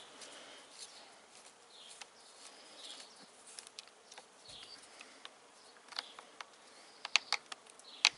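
A screwdriver works a screw out of a motorcycle's handlebar hand-guard mount, with a few sharp clicks in the last couple of seconds. Faint high chirping or buzzing sits in the background.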